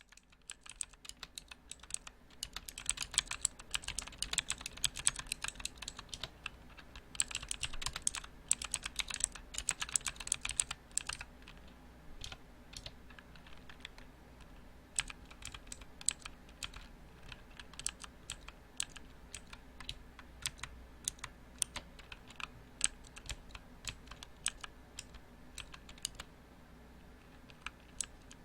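Typing on a mechanical keyboard: fast, dense runs of clacking keystrokes for about the first eleven seconds, with a short lull around six seconds in, then slower, spaced-out key presses.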